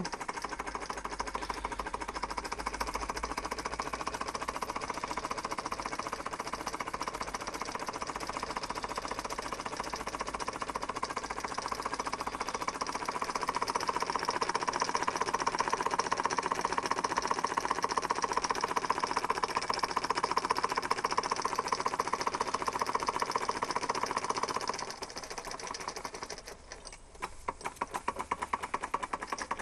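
1902 Bing toy steam engine running fast with a rapid, even mechanical clatter. About 25 seconds in it dips briefly, then comes back with more separate beats.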